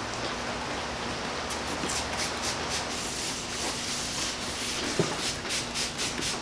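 Hand wet-sanding a painted car fender with 400-grit wet or dry sandpaper: even back-and-forth strokes at roughly three a second, with a single knock about five seconds in.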